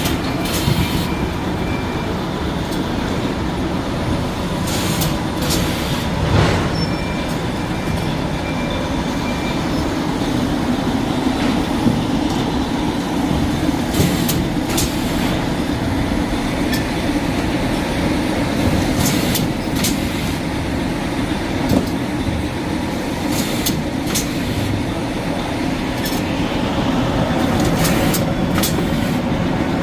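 A6345S automatic shrink-wrap packaging machine running: a steady mechanical noise with sharp clicks every few seconds.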